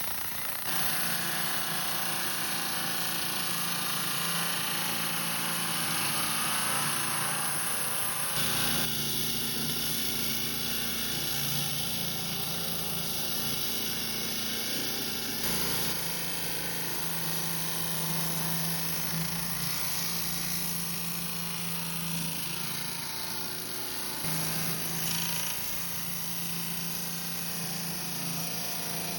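Rock saw running and cutting through a river rock: a steady motor hum with a hissing grind of blade on stone, its tone shifting a couple of times.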